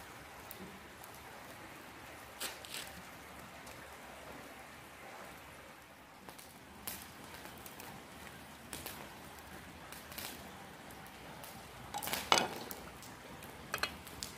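Scattered clinks and taps of a plate and spoon against a steel mixing tray as spices are tipped in and stirred, the loudest cluster about two seconds before the end, over a steady background hiss.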